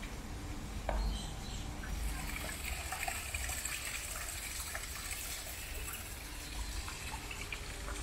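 A steady trickle of running water, with a low rumble underneath.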